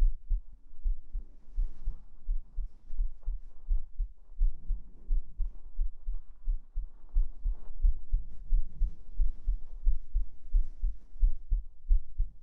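A person's heartbeat picked up close against the chest: steady, evenly repeating low thumps. Soft fabric rustling runs faintly over it.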